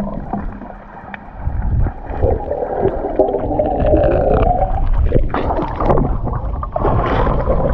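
Muffled underwater rumble and gurgling of water around a submerged microphone, with a wavering murmur in the middle. Near the end come splashes and drips as it breaks the surface.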